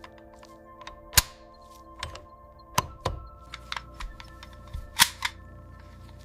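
Sharp metallic clicks and clacks of STEN submachine gun parts being handled and fitted together, about eight in six seconds, the loudest about a second in and near five seconds, over steady background music.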